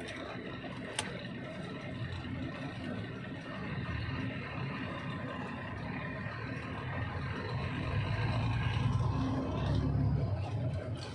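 Heavy vehicle engine running with a steady low rumble that swells louder from about eight seconds in, with a single sharp click about a second in.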